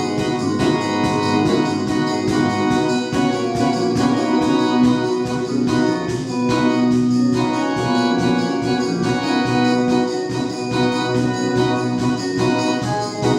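Live band music: sustained organ-like keyboard chords over a steady beat.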